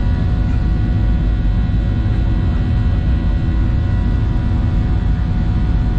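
Cabin noise of a Boeing 737-800: its CFM56-7B jet engines make a steady deep roar with several steady whining tones above it, heard from a seat inside the cabin.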